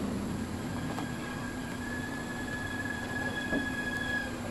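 Stainless steel sink rim pressed into the countertop cutout, giving a thin steady squeal from about a second and a half in until near the end, over a steady low hum.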